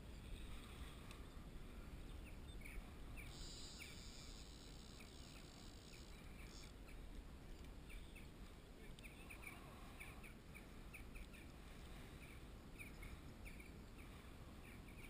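Faint outdoor ambience: a low wind rumble on the microphone with scattered short, high bird chirps, and a brief high hiss between about three and six seconds in.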